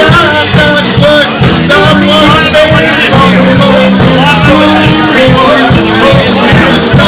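Live band music: a saxophone plays a wavering melody over keyboard and a steady, rhythmic low line.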